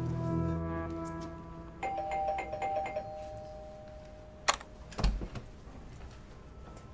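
Apartment electric doorbell ringing with a trilling two-tone chime for about a second. About a second and a half later come two sharp clicks with a dull thud: the door's lock and latch being opened.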